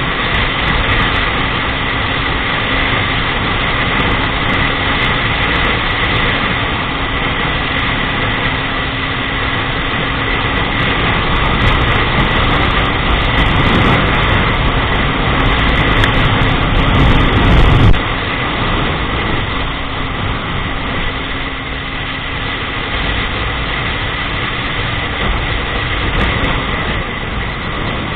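Motorcycle riding at road speed: a steady engine hum under rushing wind and road noise. The wind noise swells over the middle and drops away suddenly about two-thirds of the way through.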